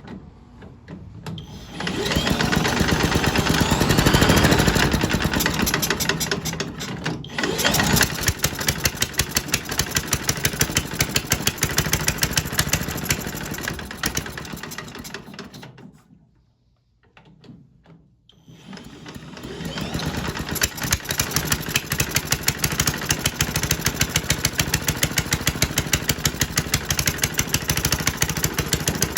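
Old Briggs & Stratton Model Y washing machine engine starting and running with a fast, even firing beat. It dies out about halfway through, then picks up again and keeps running. It runs with no exhaust fitted.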